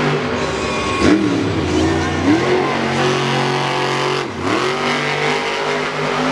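Hot Wheels monster truck's supercharged V8 engine revving hard. Its pitch dips sharply and climbs back twice, about a second in and again just past four seconds in, with steady high revs in between.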